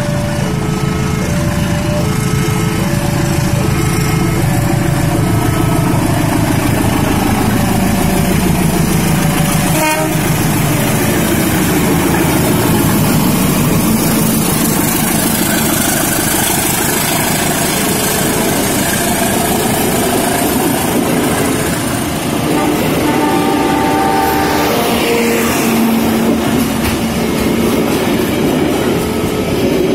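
A diesel-electric locomotive hauling a passenger train passes close by, the engine and wheels making a loud, steady rumble as the carriages run past. An alternating two-tone warning signal sounds clearly over the first several seconds and more faintly later, and there is a single sharp knock about a third of the way through.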